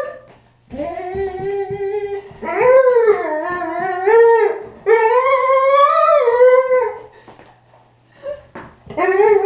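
A dog making long, drawn-out whining, howl-like vocalizations: three wavering calls of about two seconds each, then a short one and the start of another near the end.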